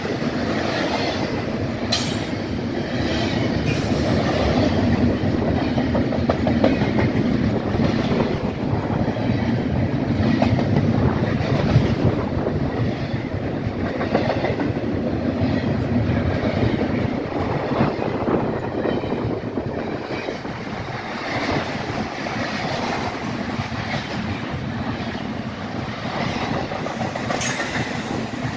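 Freight train's cars rolling past: a steady noise of steel wheels on rail with clickety-clack over the rail joints, and a few brief high wheel squeals near the start and again near the end.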